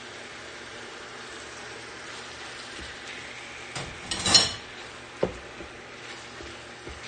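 Marinated chicken pieces sizzling in hot olive oil in a pan as a silicone spatula pushes them around, with a loud clatter a little past halfway and a sharp knock about a second later.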